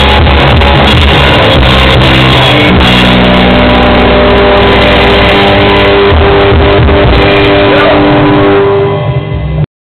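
Rock band with electric guitar playing loudly in a rehearsal jam, ending on held ringing notes that die away before the recording cuts off suddenly near the end.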